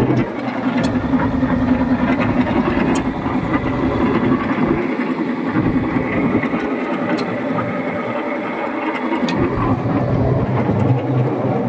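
Sicoma concrete mixer running steadily, a continuous mechanical drone with a few faint clicks.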